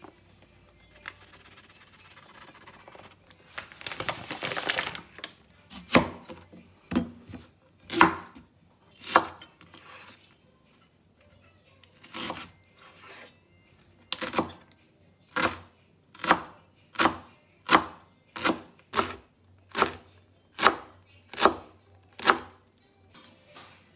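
Chef's knife chopping a green onion stalk on a bamboo cutting board: a run of sharp knocks as the blade strikes the board, slow and spaced at first, then a faster steady run of chops in the second half. A brief rustle comes a few seconds before the chopping starts.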